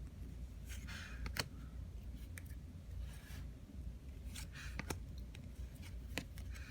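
Cardboard trading cards being flipped through by hand: short sliding rustles and several sharp flicks as cards are pulled off the stack, over a low steady hum.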